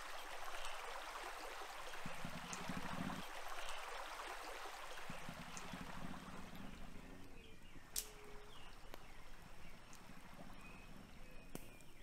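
Shallow stream trickling and gurgling over pebbles and stones, fading down in the second half. A low buzz comes in twice in the first half, and a few faint chirps sound near the end.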